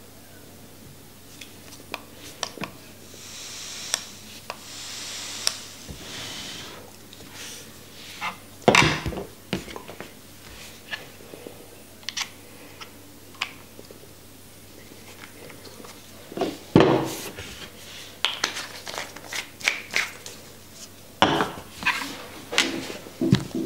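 Hands handling vape parts on a table: small clicks, taps and knocks of metal pieces and the box mod, with two louder knocks, one about 9 s in and one about 17 s in. A soft hiss runs for a few seconds starting about 3.5 s in.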